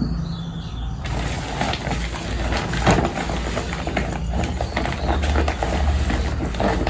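Pigs at feeding time, grunting amid a dense run of small clicks and knocks over a low rumble.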